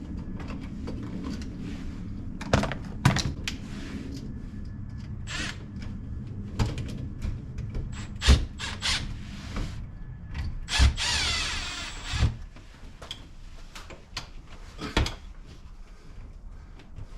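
Hand work with tools and electrical parts: scattered clicks and knocks, with a brief run of about a second from a power drill-driver around eleven seconds in.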